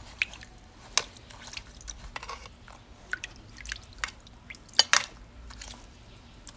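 Irregular drips and small liquid plinks from carburetor parts soaking in a tub of chemical carburetor dip, with a louder pair of plinks about five seconds in.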